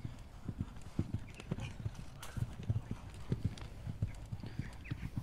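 Hoofbeats of a horse landing over a jump and cantering on across a sand arena: a run of dull low thuds.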